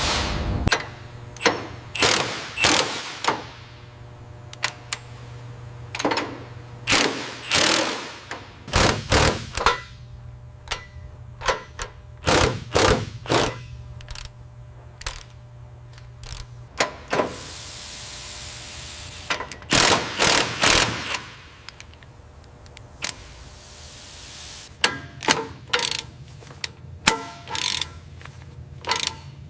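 Tool work on metal: irregular clanks and clicks, some in quick clusters, over a steady low hum that stops about seventeen seconds in, with a hiss lasting about two seconds just after.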